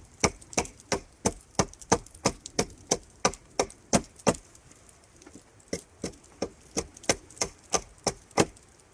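Carpenter's axe chopping into wood in quick, even strokes, about three a second, squaring up a piece of timber; the strikes pause briefly about halfway through, then resume.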